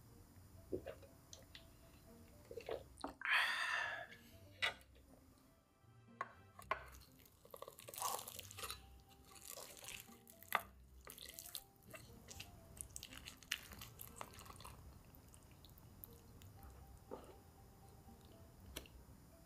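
Close-up eating sounds of KFC Crousty crispy fried chicken: crunching bites and wet chewing with scattered small clicks and smacks, and a louder crunch about three seconds in.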